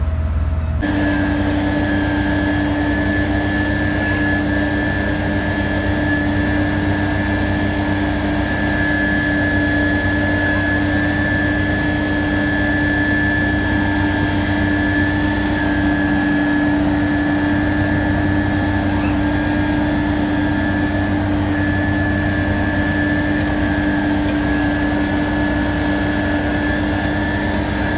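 Engine of heavy road-paving machinery running steadily, with a constant low hum and a steady high-pitched whine, which sets in abruptly about a second in.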